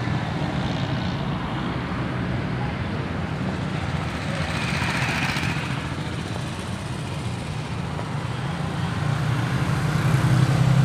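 Street traffic: motorcycles and cars running past, with a steady low engine hum that grows louder near the end.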